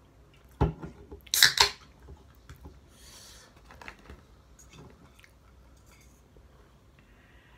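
Close-up eating sounds of a person chewing chicken wings: a knock about half a second in, loud crunching bites about a second and a half in, then quieter chewing and small mouth clicks.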